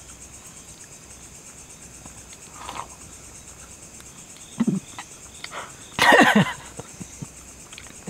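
Steady high-pitched chirring of crickets in the night forest, with a brief loud burst of a man's voice about six seconds in.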